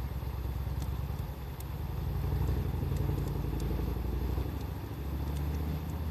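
Wood fire crackling with scattered small sharp pops, over a steady low rumble that swells about two seconds in.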